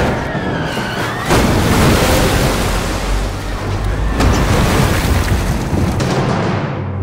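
A flood wave of rushing water, a loud roar with a deep rumble that comes in suddenly about a second in and fades out near the end, with music underneath at the start.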